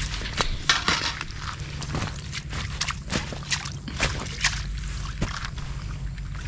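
Irregular clicks, knocks and light rustles of fishing tackle being handled, a pole rod, landing net and bait bowls, over a steady low hum.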